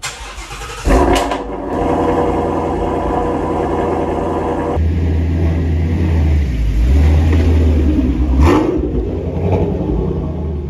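Ford Shelby GT350's 5.2-litre flat-plane-crank V8 starting up about a second in with a loud flare, then idling low and steady as the car backs out of the garage, with one louder burst near the end.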